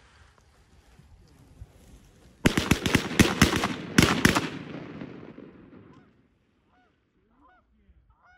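Canada geese honking, then about two and a half seconds in a rapid volley of shotgun fire, many shots in under two seconds, echoing as it fades. Faint honking follows near the end.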